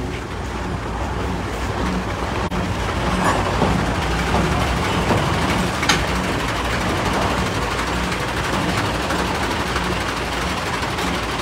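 A heavy vehicle engine running steadily, with a brief clank about six seconds in.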